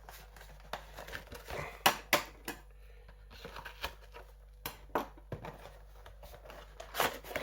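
Cardboard toy box being handled and opened: scattered light clicks, taps and rustles, with a few sharper snaps about two, five and seven seconds in.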